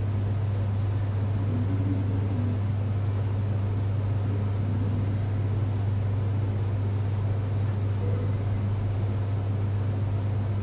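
A steady low hum, like a fan or motor running, with a few faint soft handling sounds.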